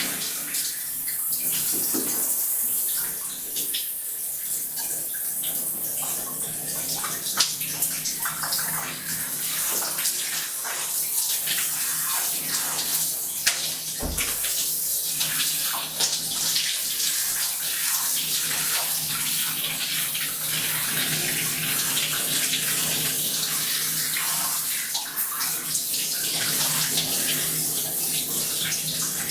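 Water running and splashing into a bathtub, a steady rush dotted with small splashes, with a brief low thump about halfway through.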